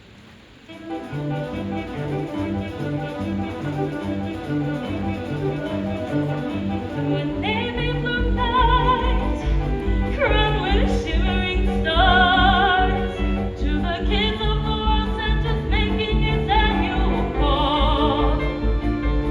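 Concert music starting about a second in over a steady repeating bass line, with a high solo voice singing with strong vibrato from about seven seconds in.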